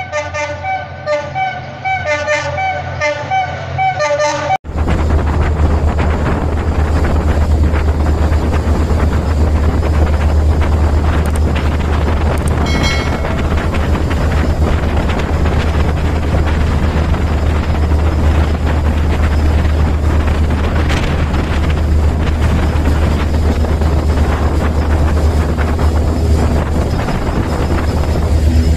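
A diesel-hauled passenger train running at close range: a loud steady low engine hum under rolling wheel and carriage noise, with a brief horn toot about halfway through. The first few seconds hold rapid repeating tones before the sound cuts over to the train.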